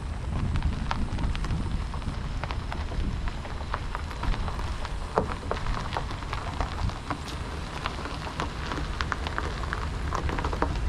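Vehicle engine running low while tyres roll slowly over a gravel and dirt pull-off, with dense, irregular crackling and crunching.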